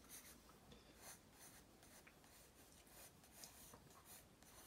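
Faint scratching of a pencil sketching on paper, in short repeated strokes.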